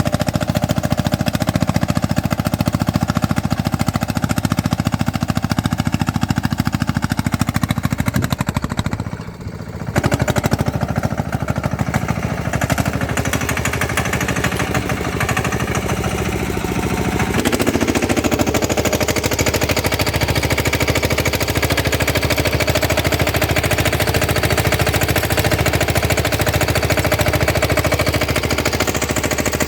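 Single-cylinder diesel engine of a three-wheeled sanedo tractor running with a rapid, even chugging. The sound drops away briefly about nine seconds in, returns, and its note changes at about seventeen seconds.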